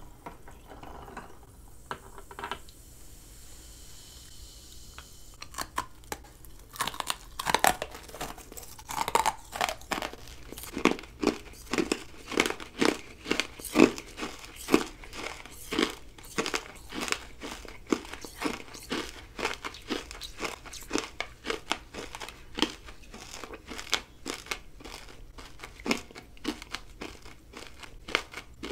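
Close-miked crunching of hard purple rock candy bitten off a stick and chewed, a rapid run of sharp cracks that starts a few seconds in and carries on.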